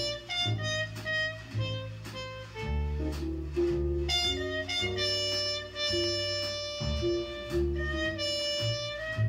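Jazz record playing back through a 2A3 single-ended tube amplifier and JBL loudspeakers. A muted trumpet plays held melody notes over a walking bass.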